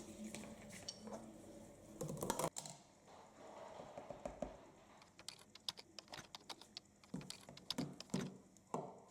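A quick, irregular run of light clicks and taps from small hard objects, with a louder cluster of knocks about two seconds in.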